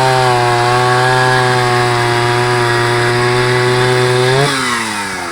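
1980 Oleo-Mac 261 two-stroke chainsaw engine running steadily at high revs. About four and a half seconds in, the revs fall away sharply as it comes off the throttle.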